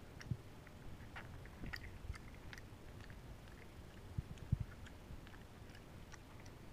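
Java macaque eating soup from her fingers, chewing and smacking her lips with many small wet clicks. A few soft low knocks, the loudest about four and a half seconds in, as her hand works in the mug.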